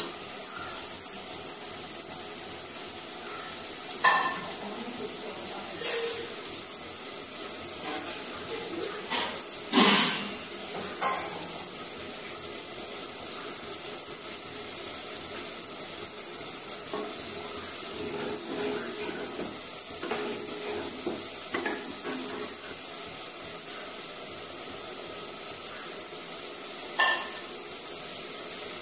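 Curries cooking in clay pots on a gas stove: a steady sizzling hiss, with a few clinks of a steel spoon against the pots, the loudest about ten seconds in.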